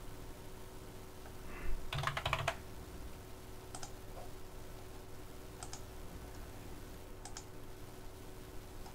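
Computer keyboard typing: a quick run of keystrokes about two seconds in, then a few single clicks spaced a couple of seconds apart, over a faint steady hum.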